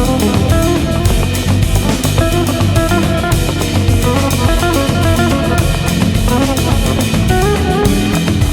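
Background music with a steady drum-kit beat and plucked guitar.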